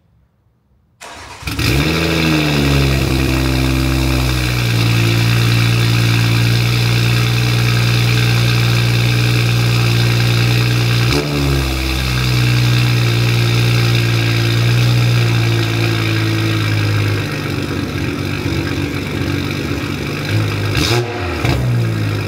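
BMW X3 M40i's B58 3.0-litre turbocharged straight-six cold-starting through a 200-cell downpipe with the OPF (petrol particulate filter) deleted. The engine catches about a second in and flares up briefly, then holds a steady, raised cold idle. The idle settles a little lower near the end.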